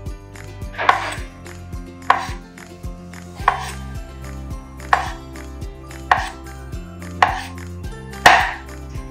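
Kitchen knife cutting firm dried tofu into strips on a wooden cutting board: seven even strokes, a little over one a second, each a sharp knock of the blade on the board. The last stroke is the loudest.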